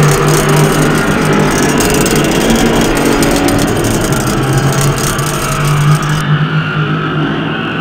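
Loud, steady, engine-like droning noise with a low hum underneath. The high hiss drops away suddenly about six seconds in.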